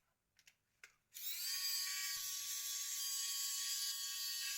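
A couple of faint clicks, then a small electric tool motor spins up to a steady high-pitched whine, holds it for nearly four seconds and stops abruptly.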